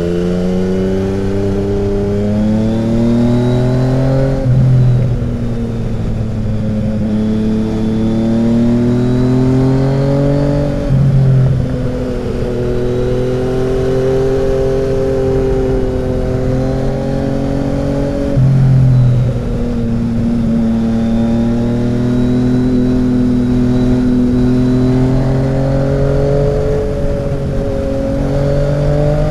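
Yamaha XSR900's three-cylinder engine through an SC-Project 70s conical exhaust, heard from the bike while it is ridden. The exhaust note climbs and falls with the throttle, and three times a short louder burst comes as the pitch drops sharply.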